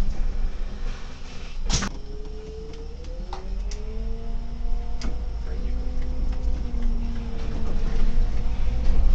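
Solaris Urbino 18 articulated city bus heard from the driver's cab while driving slowly: a steady low rumble with a faint whine that glides up in pitch and then holds. A single sharp click comes about two seconds in.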